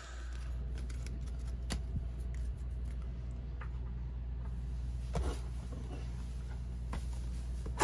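Trading cards being handled: a few faint clicks and rustles over a steady low hum.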